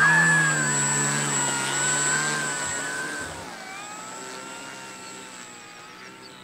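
Electric motors and propellers of Flex Innovations RV-8 RC model planes throttled up for takeoff: a droning whine whose pitch wavers up and down. It is loudest at first and fades steadily as the planes roll away.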